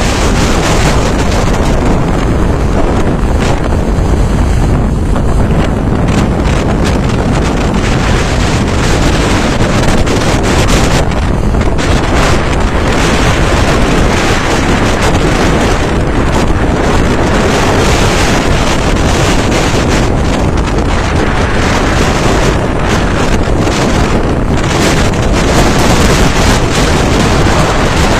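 Storm wind buffeting the microphone over heavy, rough sea: a loud, steady roar of wind and breaking waves.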